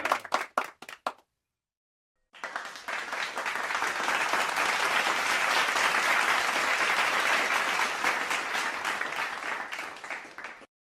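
A few last scattered claps die away. After a short silence, a crowd's applause starts about two seconds in, swells to a steady dense clapping, and fades out near the end.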